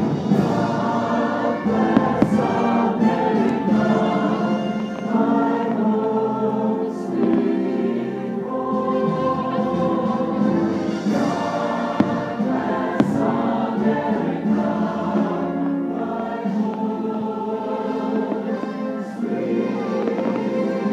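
Choir singing with orchestral music from the fireworks show soundtrack, heard live through the park's speakers. A few sharp bangs break in, from fireworks bursting overhead.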